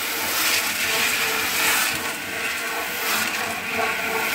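Groundnut seeds tumbling and rattling steadily inside a small drum mixer as they are coated with Vitavax seed-treatment powder.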